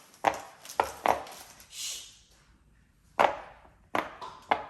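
Silicone Pop-It fidget toy being pressed: about six sharp pops at uneven intervals, with a brief soft rustle near two seconds in.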